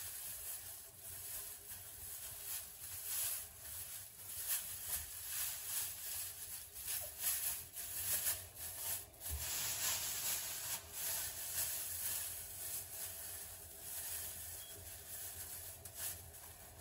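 Black plastic garbage bag rustling and crinkling in irregular crackles as it is pulled over and tucked around a pillow.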